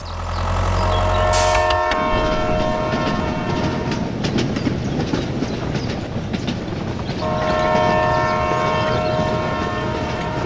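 A train horn sounding twice, each blast held about three seconds, over a steady rumbling clatter.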